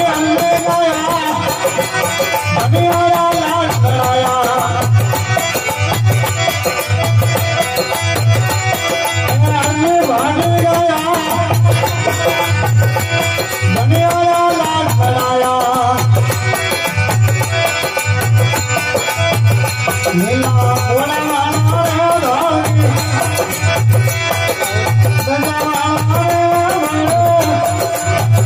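Rajasthani folk bhajan music: a wandering melody over a steady low drum beat, about three beats every two seconds.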